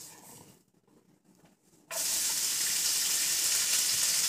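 Bacon, ham and onions frying in a pan: a steady sizzling hiss that starts suddenly about two seconds in.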